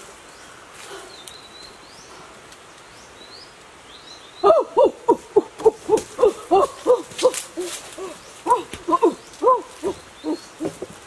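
A rapid run of short hooting animal calls, each rising and falling in pitch, about four a second, starting about four seconds in. Faint high chirps of small birds come before it.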